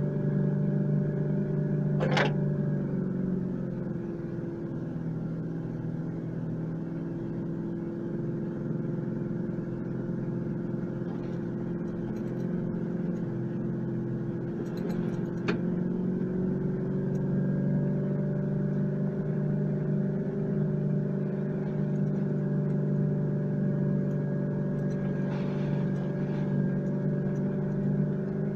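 A 4WD's engine running steadily as it drives slowly along a dirt track, heard from inside the cab, its drone shifting a little in pitch. Two sharp knocks break through, about two seconds in and again about halfway through.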